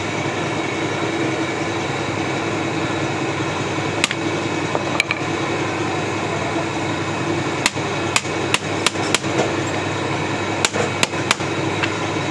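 Sharp metal taps over a steady workshop hum: single taps about four and five seconds in, then a quick run of about eight in the second half.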